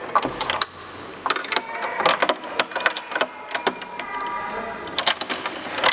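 Old iron skeleton key clicking, scraping and rattling as it is pushed into and worked in the keyhole of an old door lock, a quick irregular run of sharp metal clicks.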